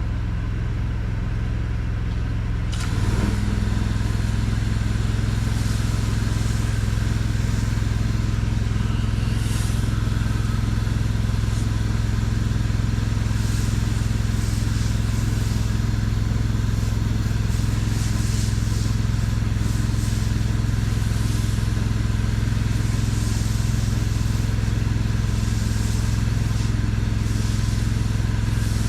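Pressure washer's engine running steadily. About three seconds in it grows louder under load and a hiss of spraying water joins it.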